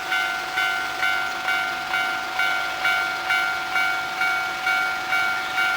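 Japanese railway level-crossing alarm ringing its repeating electronic bell tone, about two strikes a second, each strike fading before the next.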